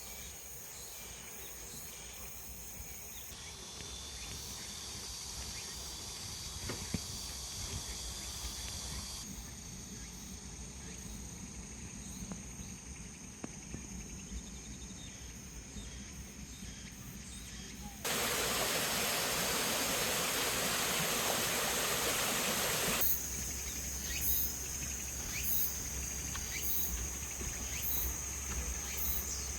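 Forest ambience of insects, with steady high-pitched chirring and trilling that changes abruptly several times as clips cut. For several seconds past the middle a louder, even rushing noise covers it. Near the end the insect sound pulses about once a second.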